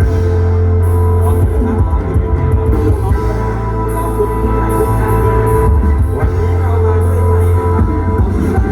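Rock music played loud, with a heavy, steady bass line.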